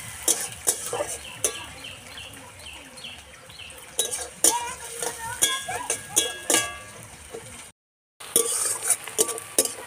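Long metal spatula clinking and scraping against a metal karahi as chopped onions and whole spices are stirred while frying in mustard oil, over a steady sizzle. The sound cuts out briefly about eight seconds in.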